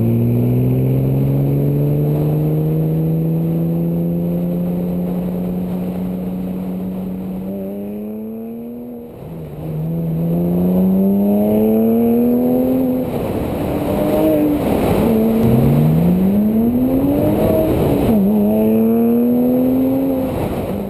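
Porsche Cayman flat-six through a GMG World Challenge cat-back sport exhaust, accelerating under load. The pitch climbs slowly for about eight seconds, drops away near nine seconds, then rises and falls in several shorter pulls toward the end.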